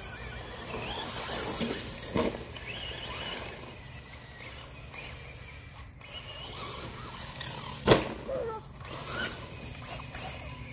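Electric motors of a Traxxas Slash 2WD and a Traxxas TRX-4 radio-controlled truck whining, rising and falling in pitch as the trucks drive over dirt. There is a sharp knock about two seconds in and a louder impact about eight seconds in.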